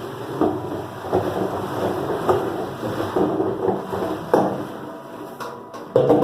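Water-jug washing machine with a soft rotating brush running: a steady mechanical noise broken by irregular knocks and clatter, with a louder knock near the end.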